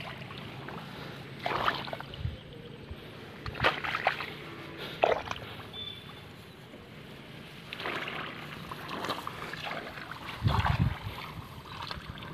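Rice plants rustling and brushing in short strokes now and then as they are parted by hand. A low rumble of wind on the microphone comes about ten seconds in.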